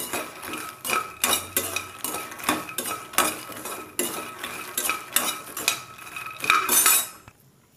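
A metal spoon stirring makhana (fox nuts) in a metal kadai: a run of irregular scrapes and clinks against the pan as the nuts are fried in a little oil until crisp. The stirring stops shortly before the end.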